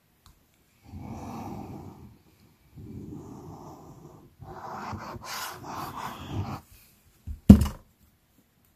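Plastic bottle of liquid glue being squeezed in three noisy stretches of a second or two each, as glue is drawn out along cardstock. A single loud knock follows near the end.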